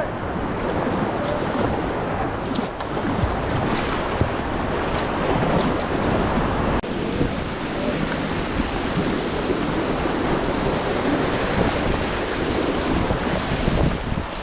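Whitewater of a shallow river rapid at low flow rushing steadily, with wind noise on the microphone. There is a brief dropout and change in tone about seven seconds in.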